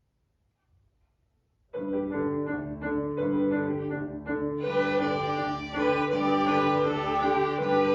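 Near silence, then a children's violin ensemble starts playing about two seconds in, the sound growing fuller about five seconds in as more parts join.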